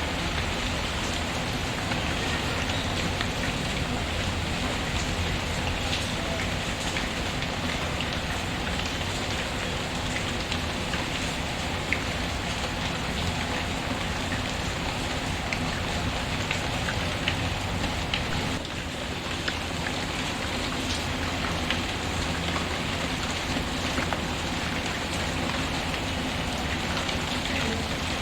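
Steady rain falling, mixed with a wood fire crackling in a fireplace: an even rain hiss with scattered sharp ticks through it.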